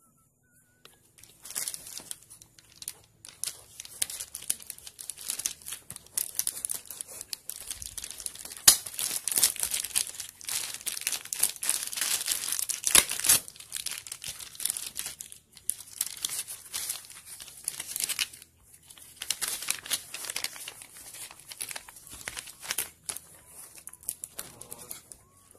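Plastic parcel wrapping crinkling and tearing as it is pulled and cut open by hand. It starts after a moment of quiet and goes on in irregular rustling spells, with a few sharper snaps.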